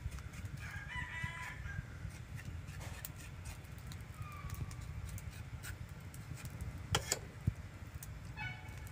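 A rooster crows briefly about a second in, with a shorter fowl call near the middle and another near the end. Underneath, scattered small clicks and scrapes of a knife working over goat tripe on a tray.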